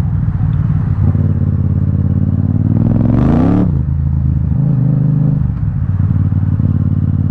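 Yamaha XSR700's parallel-twin engine running through an Akrapovic carbon full-system exhaust at low revs. About two seconds in it revs up for a second and a half, then drops back and settles into a steady low run. The exhaust has no silencer insert, which the rider calls too loud for the city.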